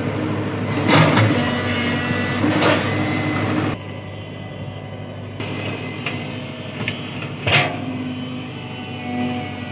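Tata Hitachi crawler excavator's diesel engine running steadily while it moves soil, with two sharp knocks, one about a second in and one about seven and a half seconds in. The overall sound drops quieter a little before four seconds in.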